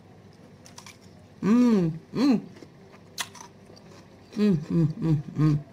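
A woman chewing crisp cucumber with her mouth closed, with a few faint crunching clicks, and humming "mmm" in short notes that rise and fall. Two hums come around a second and a half in, and four quick ones near the end.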